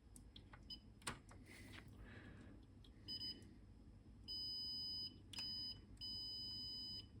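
Multimeter continuity beeper sounding as probe tips touch connected pins: a steady high beep in five stretches, short and long, each marking a connection found. A few light clicks of the probes come just before the first beep.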